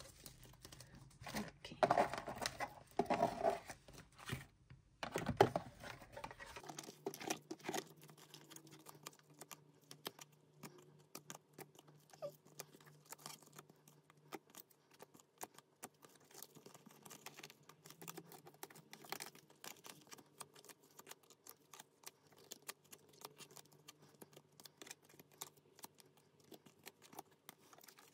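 Photocards and plastic binder sleeves being handled: light rustling and many small clicking taps, heaviest in the first few seconds.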